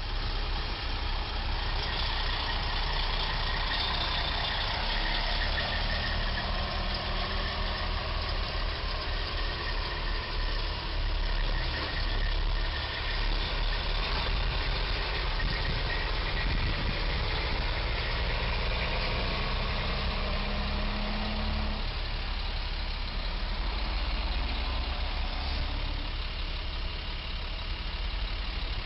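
Traffic at a signalled intersection, with a truck's diesel engine idling close by; its low hum rises slightly in pitch and drops out about twenty-two seconds in.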